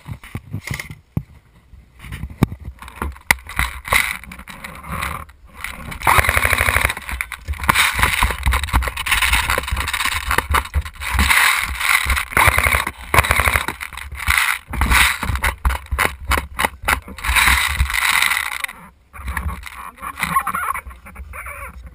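Rattling, clicking and knocking from an airsoft gun and the camera mounted on it as it is carried and handled, with runs of rapid, evenly spaced clicks about a quarter of the way in and again past the middle.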